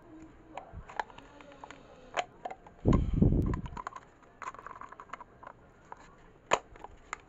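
Scattered light plastic clicks and taps of a plastic diffuser dome being handled and pressed onto an LED bulb body, with one louder, low bump lasting under a second about three seconds in.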